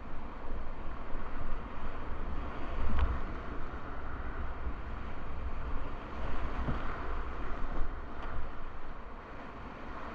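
Rushing whitewater of river rapids at high water, a steady loud wash, with wind buffeting the microphone and two brief knocks, about three seconds in and just before seven seconds.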